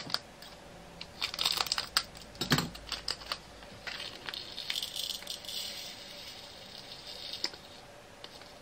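Small plastic storage pots being opened and handled with sharp clicks, then a rattling hiss from about four seconds in as tiny resin diamond-painting drills are poured from a plastic funnel tray into the pots.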